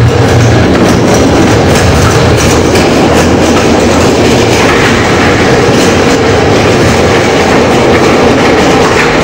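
Hand pallet truck rolling over a warehouse floor, its wheels rumbling and clattering steadily.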